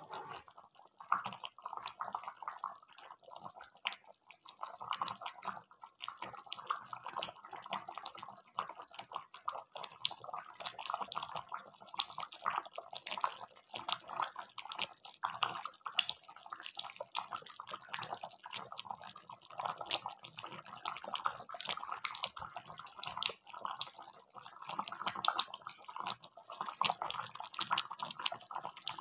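Chicken curry simmering in a pan, the gravy bubbling with a steady stream of small, irregular pops.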